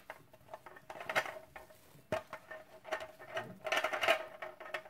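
Shredded vegetarian meat tipped from a metal container into a glass bowl: an irregular light patter of pieces landing, with scattered clicks and one sharper click about two seconds in, busiest near the end.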